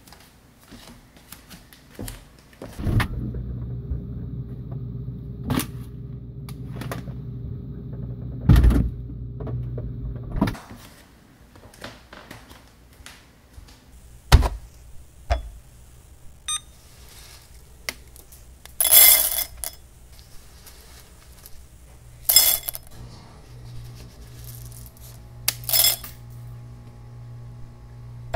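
Kitchen sounds: scattered clicks and knocks, a steady low hum for several seconds, and a few faint beeps. Then coffee beans are poured into a glass bowl on a kitchen scale in three short rattling pours.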